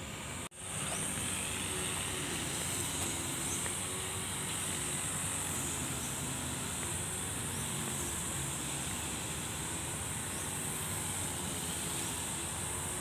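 Steady street ambience: a low traffic rumble under a continuous high-pitched insect drone from the roadside trees, with a few faint chirps. The sound cuts out for an instant about half a second in.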